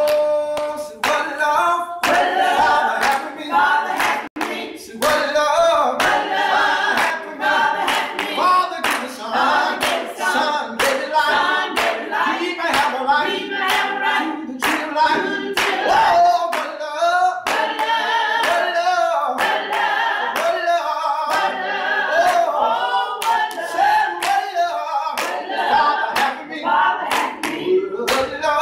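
Choir singing, with hand clapping keeping the beat.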